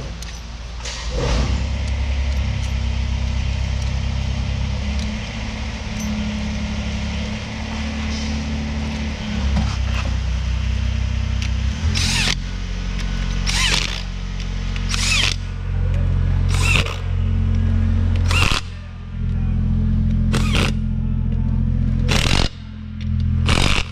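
Hand socket ratchet clicking in short bursts, one about every second and a half, as the lug nuts on a Kubota LX2620's front wheel are run down. The bursts start about halfway through. A steady low hum runs throughout.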